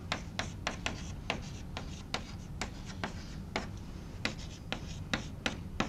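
Chalk writing on a blackboard: an irregular run of sharp chalk taps and short scrapes as letters are formed.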